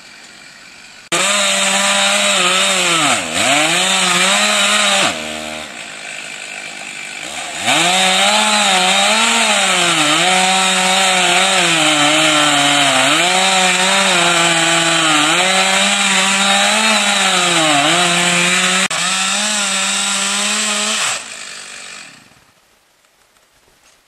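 Two-stroke chainsaw cutting a tree stump close to the ground, its pitch dipping again and again as the chain bogs into the wood. It drops back to idle for a couple of seconds, revs back into the cut, then the throttle is released and it winds down near the end.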